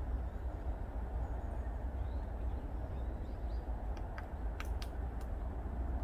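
Woodpecker pecking at wood: a few sharp taps, irregularly spaced, over about a second near the end. A steady low rumble lies underneath, with a few faint high bird chirps.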